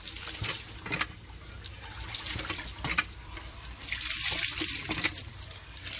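Water splashing out of a hand-pumped tube well in a steady rush that grows stronger about four seconds in, with a few sharp clicks.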